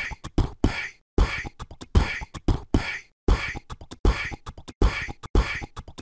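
Beatboxing: a repeating mouth-made beat of kick-like thumps and hissing snare-like sounds, looping about every two seconds with a brief gap between loops.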